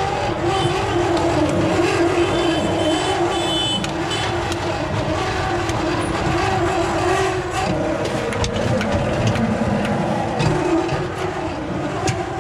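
Steady street-traffic noise: engines hum and waver in pitch, with scattered sharp clicks and taps over it.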